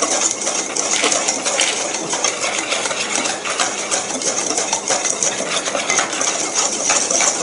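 Wire balloon whisk stirring dry flour, baking powder and sugar in a stainless-steel bowl: a quick, continuous scraping and ticking of the wires against the metal.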